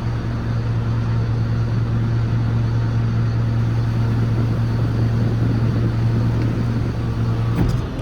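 Truck's Caterpillar C7 diesel engine running at a steady speed with a strong, even hum. Near the end there is a click and the tone changes.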